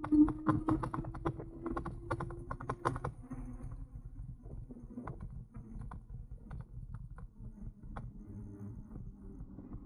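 An e-bike clicking and rattling as it rides, over a low rumble. The clicks come thick and irregular at first, with a steady hum that stops about three seconds in, then thin out to occasional knocks.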